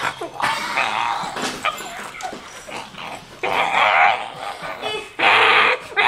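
A child's voice making rough, raspy growls in several bursts, close to the microphone, louder in the second half.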